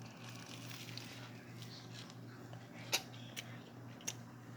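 Quiet room tone with a steady low hum, and three soft clicks in the second half.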